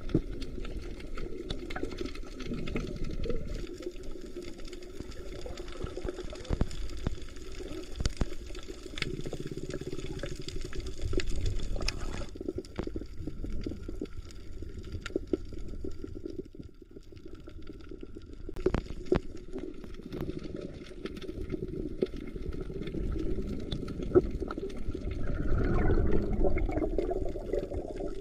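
Muffled water sound recorded underwater: a continuous low rumble and sloshing of moving water, with scattered sharp clicks. It swells louder in the last few seconds.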